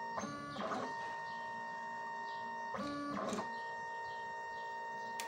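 He3D K200 delta 3D printer's stepper motors whining steadily as it runs its automatic bed-leveling probe routine. Twice the pitch of the whine changes, each time with a short whirr, as the print head moves to the next probe point.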